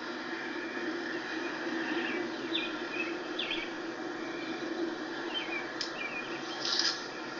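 Short high chirps from a small animal, a few around two to three seconds in and again about six seconds in, over a steady background hiss, with a brief louder hiss near the end. No thunder is heard.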